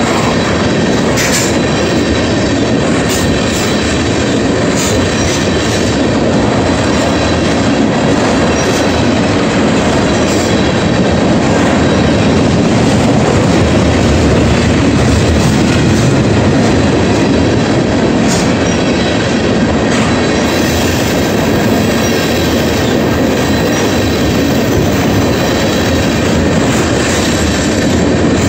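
Freight train tank cars rolling past close by at speed: a steady, loud rumble of steel wheels on the rails, with scattered sharp clicks.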